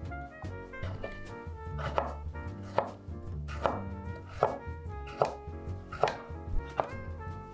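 Chef's knife chopping a carrot on a wooden cutting board: sharp, evenly spaced knocks a little under a second apart, about seven of them, with background music under them.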